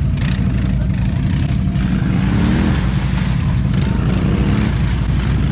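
ATV engine running steadily, with a short rev that rises in pitch about two seconds in.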